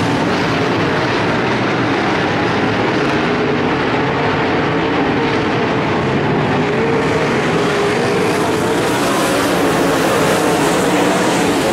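Field of dirt-track modified race cars' V8 engines running hard at racing speed around the oval, a steady, loud wall of engine sound whose pitch wavers as cars come through the turns and down the straights.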